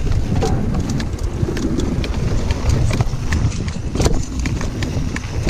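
Mountain bike (YT Jeffsy) riding fast over a wooden boardwalk and then a dirt trail: tyres rumbling and knocking over the planks and ground, with a continuous rapid clatter of small knocks and rattles from the bike.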